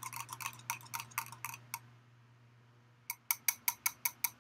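Wire whisk clicking against a bowl while pudding is whisked: scattered taps in the first two seconds, then a quick, even run of clicks, about six a second, near the end.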